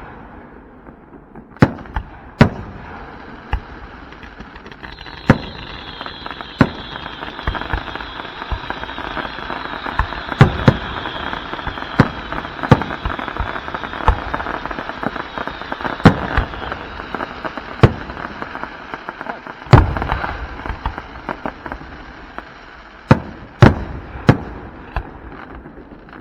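Aerial fireworks bursting, with sharp booms at irregular intervals throughout. From about five seconds in until near the end, a dense, continuous crackle runs under the booms.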